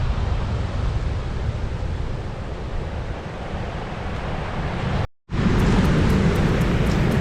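Heavy surf from a typhoon swell breaking on the beach, with wind buffeting the microphone. It cuts out briefly about five seconds in and comes back louder.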